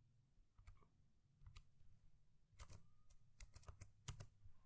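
Faint computer keyboard keystrokes, a few scattered clicks at first, then a quicker run of them in the second half.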